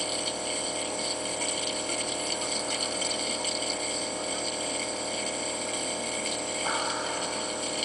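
Asthma nebulizer's air compressor running steadily, pushing air through the medicine cup and mouthpiece with a constant hum and hiss, near the end of a treatment as the medication runs low. A short hiss from the mouthpiece comes about seven seconds in.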